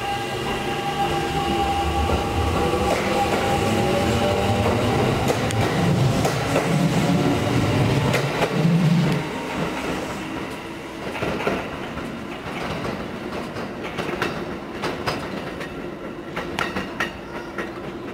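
Kintetsu 1253 series electric train pulling away from the platform: its VVVF inverter traction motors whine, one tone rising in pitch as it gathers speed, over a heavy rumble of the wheels. From about ten seconds in the rumble is quieter, broken by a run of sharp clacks of wheels over rail joints and points.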